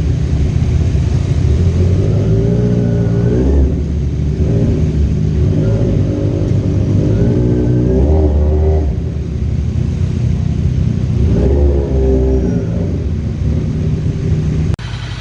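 Kawasaki Z1000 inline-four motorcycle engine under way, revving up through the gears: its pitch climbs and falls back three times. The sound drops away abruptly near the end.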